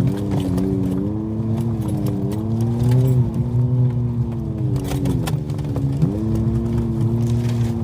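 A vehicle engine running under load, its pitch rising and falling as the throttle is opened and eased, with scattered sharp clicks and knocks over it, typical of tyres on a rough forest road. The engine dips in pitch about five seconds in, then picks up again.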